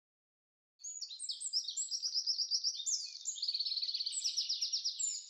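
Common starling singing: a fast, continuous jumble of high chirps and short whistles with runs of rapidly repeated notes, starting about a second in.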